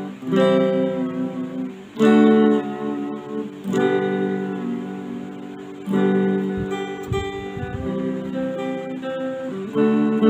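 Stratocaster electric guitar played on a clean tone: about six chords strummed roughly every two seconds, each left to ring out. It is a test play of the guitar after a tremolo bridge repair.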